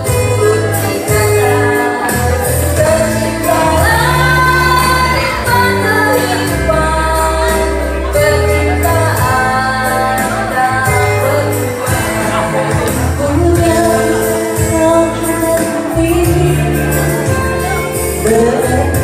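Several women singing together into microphones over an accompanying track with a bass line and steady percussion.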